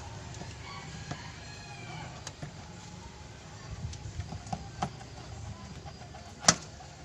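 Hands working the Mitsubishi Mirage G4's ribbed rubber air intake hose loose from the throttle body, with scattered plastic clicks and knocks and one sharp, loud snap near the end. A rooster crows in the background.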